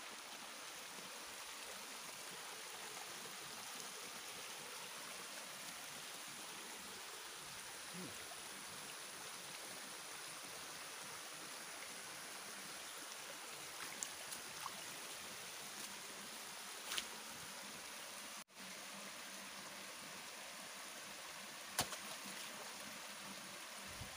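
Faint, steady rush of a shallow flowing stream, with a few brief sharp clicks in the second half.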